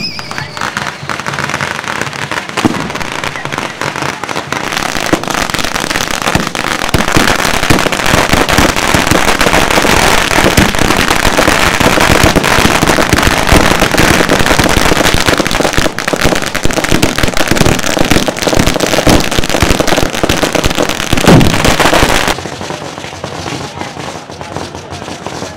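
Firecrackers and ground fireworks going off in a dense, rapid crackle of pops. It builds over the first several seconds and falls away suddenly near the end.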